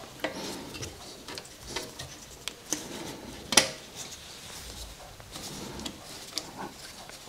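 Scattered metallic clinks, clicks and knocks of hand tools and exhaust parts being handled while a slip-on exhaust silencer and its heat shield are fitted, with one sharper knock about three and a half seconds in.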